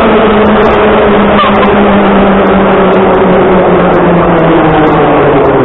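Vintage Moscow Metro train of Am-type cars running along the platform, its traction motors whining with a pitch that slowly falls as the train slows, over a steady rumble of wheels on rail.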